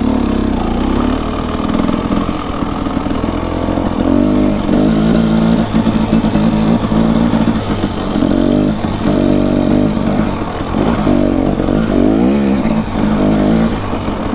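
Dirt bike engine running at low speed, its revs rising and falling over and over as the throttle is worked.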